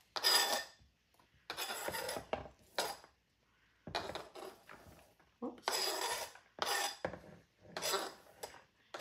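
Diced peppers being scraped off a plastic cutting board into a mixing bowl, in about seven short scraping strokes with brief pauses between them.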